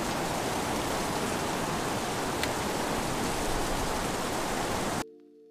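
Mountain river rushing over rapids and a gravel shallows: a steady, even rush of water that cuts off suddenly about five seconds in.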